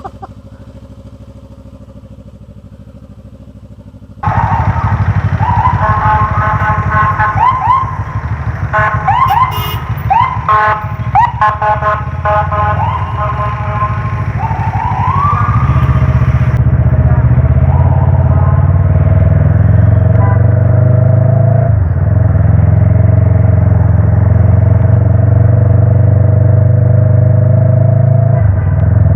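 Motorcycle engine running quietly, then about four seconds in it suddenly gets loud and accelerates: the pitch rises again and again as it revs up through the gears with shifts in between. From about halfway it settles into a steady drone at cruising speed, with wind rushing over the bike-mounted microphone.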